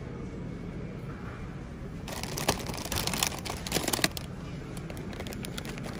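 Plastic cookie packages crinkling and rustling as they are handled and pulled off a shelf, a run of irregular sharp crackles starting about two seconds in, over a low steady rumble.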